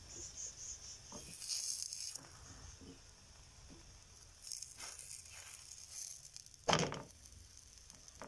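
Stuffed saag paratha dry-cooking on a hot tawa: a faint steady hiss, with short bursts of rustling and scraping as a hand shifts and turns the flatbread. One short, louder slap comes about two thirds of the way through, as the paratha is flipped onto the pan.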